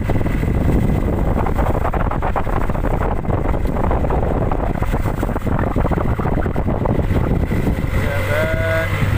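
Fishing boat's inboard engine running steadily under way, a constant low hum with rapid pulsing, mixed with wind and rushing water.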